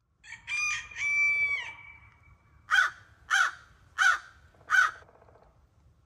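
A rooster crows once, a drawn-out crow ending in a long held note. Then a crow caws four times, harsh short caws evenly spaced about two-thirds of a second apart.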